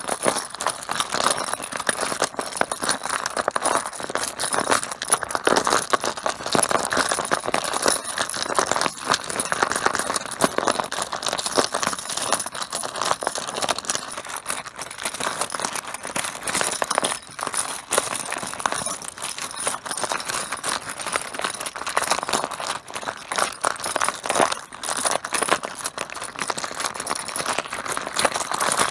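Mahjong tiles clattering against one another in a dense, continuous run of clicks and clacks.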